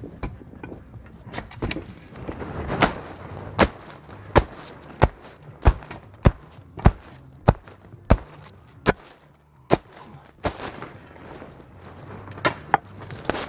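Mattock and shovel chopping into root-filled forest soil while digging: a steady run of sharp strikes about every two-thirds of a second for several seconds, then a pause and a couple more strikes near the end.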